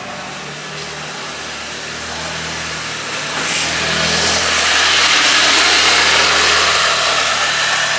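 A motor vehicle's engine drawing near and passing close by: a steady low engine hum with a hiss that swells about three seconds in, loudest around five to six seconds, then easing slightly.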